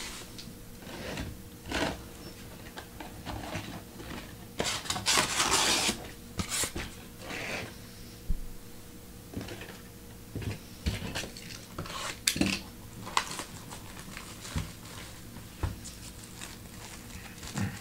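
Hands handling objects on a tabletop: scattered clicks, taps and light rubbing, with a longer rustle about five seconds in.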